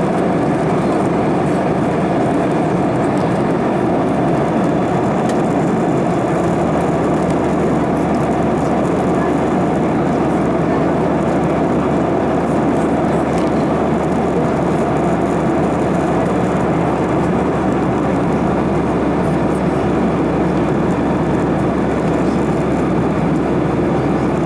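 Steady, unbroken rumbling noise of a moving vehicle, even in level throughout.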